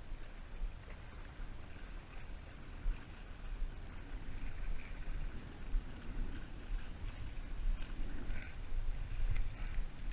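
Wind buffeting the microphone in uneven gusts, over a faint wash of water.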